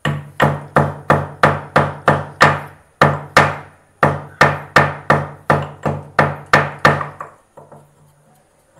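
Stone pestle pounding in a stone mortar: a steady run of heavy strikes, about three a second, that stops about seven seconds in.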